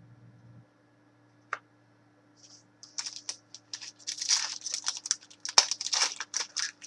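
Foil trading-card pack wrapper crinkling and crackling in the hands, a dense run of sharp crackles from about three seconds in. A single click comes about a second and a half in.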